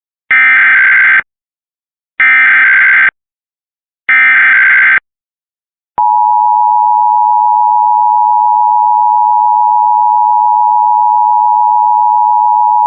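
Emergency Alert System SAME header: three identical bursts of warbling digital data, each about a second long and a second apart. About six seconds in, the steady two-tone EAS attention signal starts. Together they mark the start of an emergency alert, here a required monthly test.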